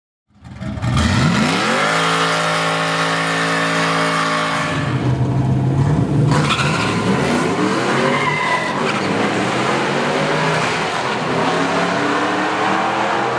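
Modified Nissan Patrol VTC's engine revving up and held at steady high revs for a few seconds. It then accelerates hard, its pitch rising again and again through successive gears.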